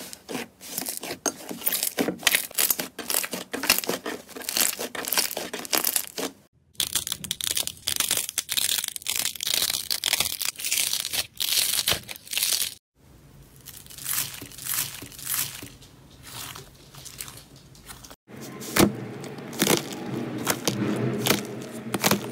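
Slime being squeezed, pulled apart and pressed by hand, giving dense crackling, popping and soft tearing sounds, in several short takes separated by brief silent gaps. Near the end the sound comes from a crusted iceberg slime crackling as a finger presses into its dried top.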